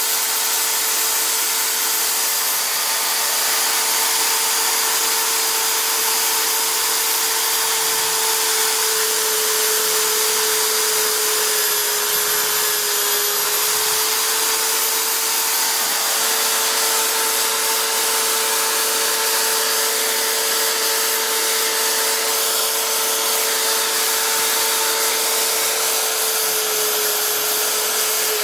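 Electric power tool motor running steadily with a high whine, its pitch sagging slightly twice as it takes load.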